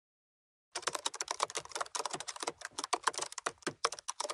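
Computer-keyboard typing sound effect: a quick, uneven run of key clicks, several a second, starting about three-quarters of a second in after dead silence.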